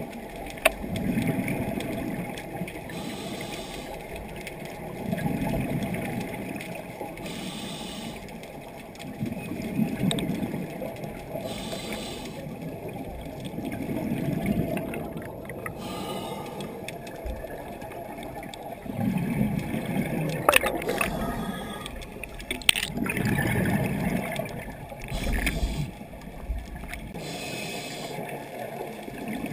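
A scuba diver's breathing through a regulator, heard underwater: a bubbling rush of exhaled air about every four to five seconds, seven times, with a softer hiss of inhaling between them.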